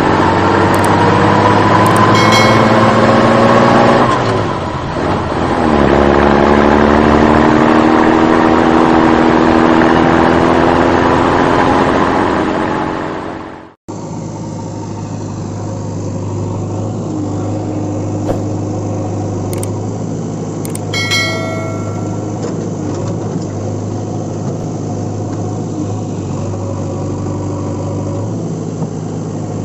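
Truck engine sound revving, its pitch climbing steadily, dipping about five seconds in and climbing again. It cuts off abruptly about halfway. After that a lower, steady engine idle runs, with a few brief clicks.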